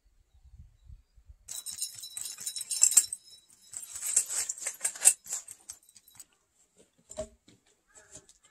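Metal hardware on a carpenter's tool belt and harness jangling and clinking as he moves, with scattered light knocks and one louder knock about seven seconds in.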